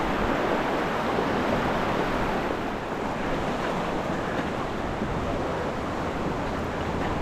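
Steady rush of river water running through rapids, a dense even noise with no break.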